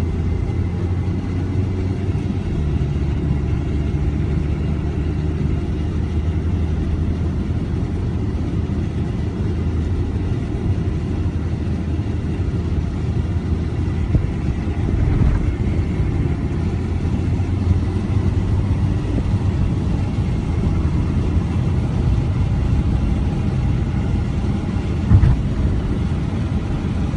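A car driving at road speed, heard from inside the cabin: steady low road and engine rumble. A single short thump near the end is the loudest moment.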